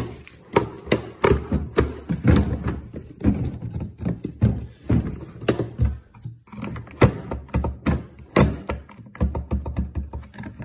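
Plastic drawers of a Milwaukee Packout three-drawer box being slid open and pushed shut on their metal slides, with many hard plastic knocks and thunks as they stop and close.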